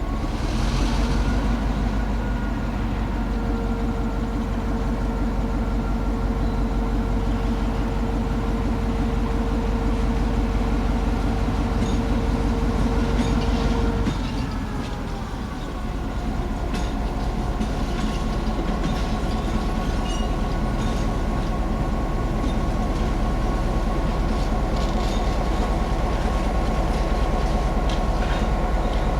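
EMD GP9 diesel-electric locomotive's 16-cylinder 567 two-stroke engine running steadily while switching cars, with a steady tone held over it until about halfway. The engine note then dips and shifts before settling again, with scattered clicks through the later part.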